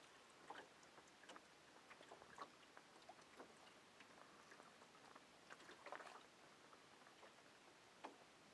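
Near silence: faint hiss with scattered soft, irregular clicks and ticks.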